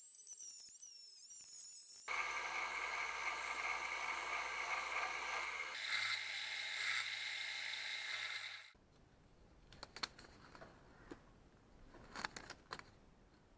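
A handheld rotary tool whines at high speed against a steel axe head for about two seconds, its pitch wavering under load. Then a bench belt sander grinds the steel for about six seconds in a loud, steady rasp. After that come only faint clicks and rustles of handling.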